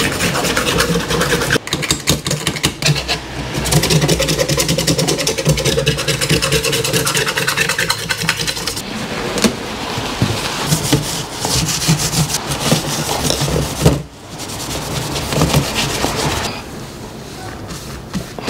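Hand scraper being worked in quick scratchy strokes along the edge of a kitchen worktop's hob cutout, scraping off old residue and debris. The strokes break off briefly about 14 seconds in and stop about two seconds before the end.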